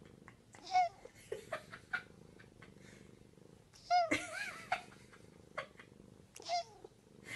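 Tabby cat purring steadily and breaking into three short meows: one about a second in, a louder one around the middle, and one near the end.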